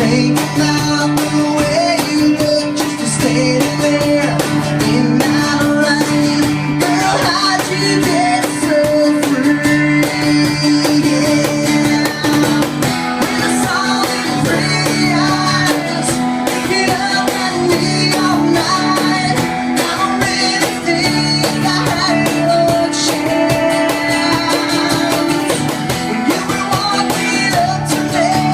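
Acoustic song: a guitar strummed in steady chords, a cajon struck in a steady beat, and a voice singing.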